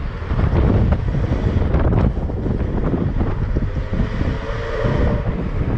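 Wind buffeting the microphone over the low rumble of a car driving slowly along a street.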